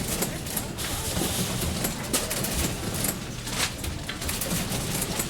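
Ambience of walking out of a shop: a busy mix of indistinct voices with scattered short clicks and rustles.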